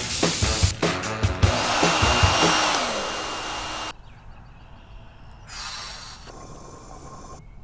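A hand-held hair dryer runs over upbeat music, then cuts off abruptly about four seconds in as the power goes out, leaving the room much quieter.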